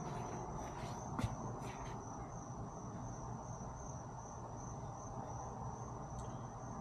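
Crickets trilling in one steady high-pitched tone, with a few soft clicks and steps in the first couple of seconds.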